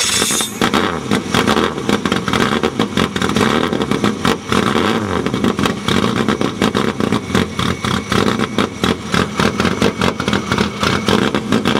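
The 1275 cc BMC A-series four-cylinder race engine of an Austin-Healey Bugeye Sprite running loud and rough, its note rising and falling as it is revved.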